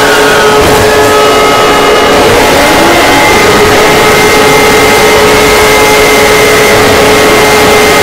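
Emergency alert alarm, heavily distorted and at full volume: several steady tones held over harsh static-like noise, with a brief rising tone about three seconds in.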